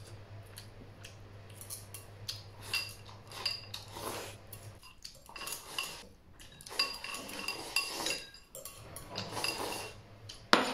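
Wooden chopsticks clinking and scraping against a ceramic bowl while eating, in an irregular run of light clicks with a short ringing edge. A louder single knock comes near the end.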